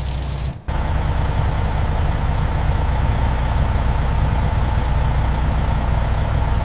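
Steady low machinery drone with a faint steady whine above it. It starts after a short hiss cuts off about half a second in.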